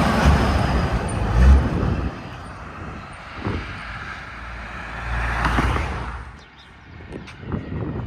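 Road traffic passing: a heavy engine rumbles loudly through the first two seconds, then another vehicle goes past with a swell of tyre and engine noise about five seconds in.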